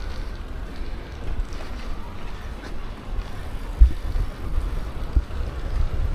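Wind buffeting the microphone, a low rumble that swells and dips unevenly, loudest a little under four seconds in.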